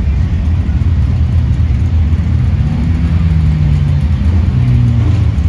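Sport compact race car engines idling, a steady low rumble whose engine notes shift slightly in pitch now and then.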